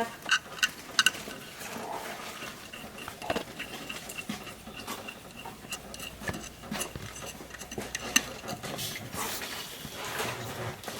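Scattered light metallic clinks and taps, with a few sharper knocks, as parts and tools are handled while a new water pump is fitted.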